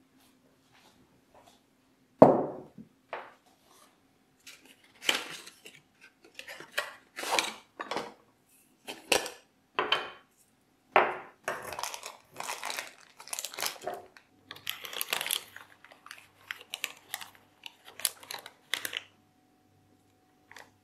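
Matcha tin, its lid and a ceramic tea bowl handled on a wooden table: a string of knocks and clinks, the loudest about two seconds in, with the foil bag inside the tin rustling in between.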